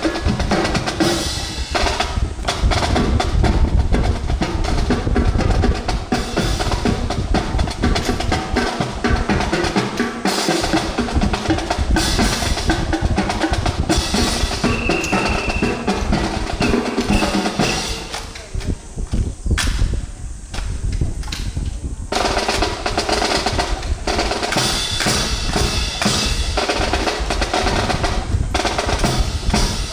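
Marching drums playing a drill cadence: snare drum rolls and rapid strokes over bass drum beats. The drumming thins out for a few seconds past the middle, then picks up again.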